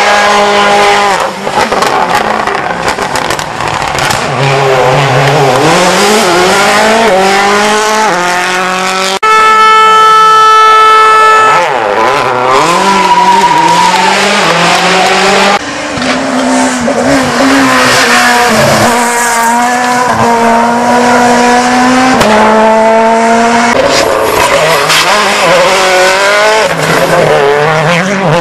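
World Rally Cars at racing speed, passing one after another in a run of short clips. Each engine note climbs through the gears and falls away as the car brakes for a corner. About ten seconds in, one engine holds a steady high note for a couple of seconds.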